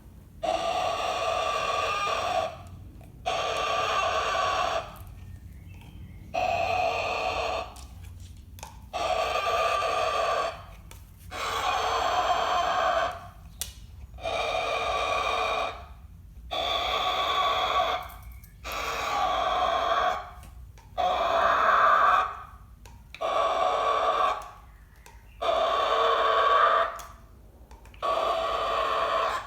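Cockatoo screeching, about a dozen loud, harsh screams of a second and a half each, repeated every two seconds or so at an even volume.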